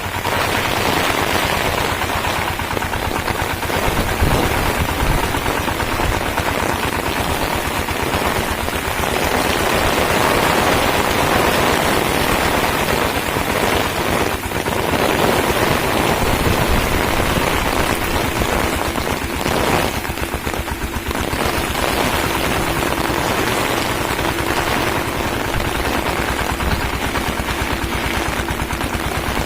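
Shakti power tiller's single-cylinder diesel engine working with a rapid, steady chugging.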